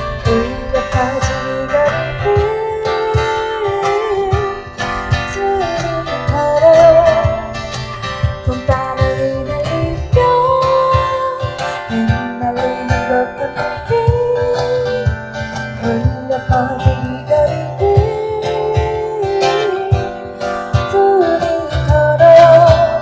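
Live acoustic band playing a song: a strummed acoustic guitar and a steady bass line under a sung lead melody.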